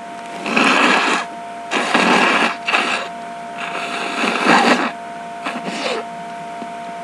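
A person sneezing repeatedly in a hay-fever sneezing fit: several loud, breathy sneezes in quick succession over about five seconds.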